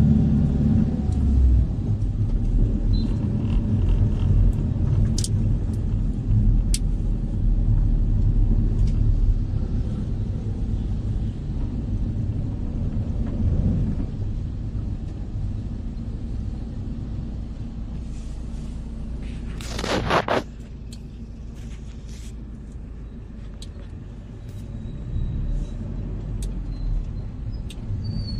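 Road and engine rumble inside a moving passenger van. About twenty seconds in, a louder rushing noise builds and then cuts off suddenly.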